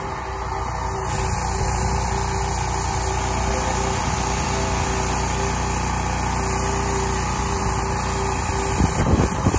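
Pressure washer's engine running steadily under load while a turbo tip on an extension wand sprays water against aluminum siding. Wind buffets the microphone near the end.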